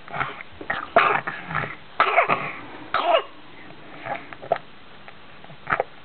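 Baby coughing in short bursts: three strong coughs about a second apart, then a few fainter ones.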